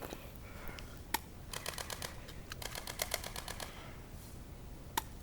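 BB guns firing: a single shot about a second in, then a rapid string of shots at about eight a second for some two seconds, and one more shot near the end.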